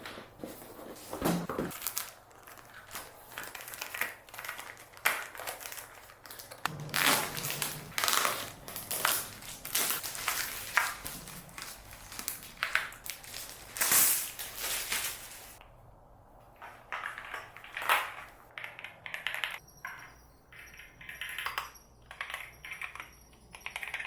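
Keyboard packaging being opened by hand: cardboard and plastic tearing, crinkling and rustling, with scattered clicks and knocks as the box is handled. Near the end it thins to lighter taps and clicks.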